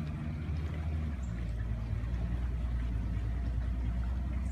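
Outboard motor of a bass boat running steadily under way, a low, even engine drone.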